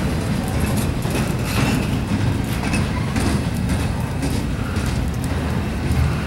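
Double-stack intermodal freight train rolling past on the crossing, a steady heavy rumble of steel wheels on rail with occasional faint clicks.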